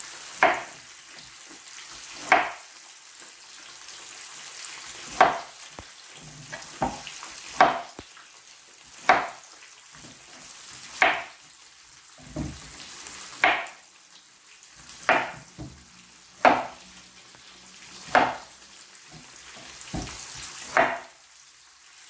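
Cleaver-style kitchen knife chopping through a cucumber onto a plastic cutting board, a sharp chop every second or two, about a dozen in all. Underneath, whole fish sizzle steadily as they fry in oil in a pan.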